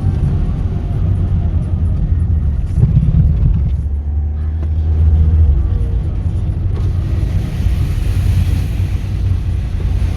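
Steady low rumble of a Mahindra XUV700 on the move, heard from inside the cabin: engine and road noise. A hiss grows louder about seven seconds in.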